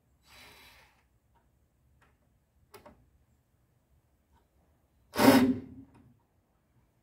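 One loud, sharp impact about five seconds in that rings on briefly, with a soft double click a couple of seconds before it and a faint hiss near the start.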